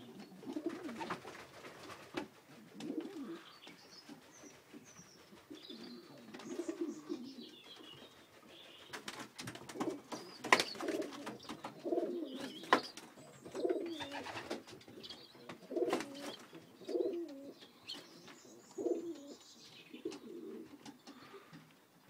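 Domestic pigeons cooing, a low call repeated every second or two, with faint higher chirps. Two sharp knocks about halfway through, a couple of seconds apart; the first is the loudest sound.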